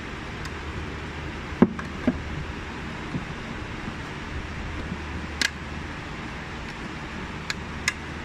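Sharp clicks and knocks of a concealed steel cabinet hinge being worked on a cabinet door and side panel, loudest about a second and a half in, with a pair of quick clicks near the end. Under them runs a steady low hum.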